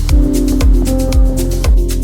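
Background electronic dance music with a steady kick-drum beat of about two beats a second, ticking hi-hats and held synth notes.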